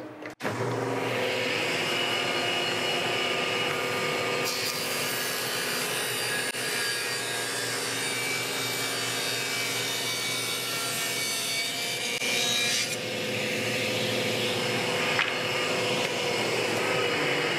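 Table saw and dust collector running steadily. For about eight seconds in the middle the saw blade cuts through a piece of wood, adding a hissing sawing noise, then the blade spins free again.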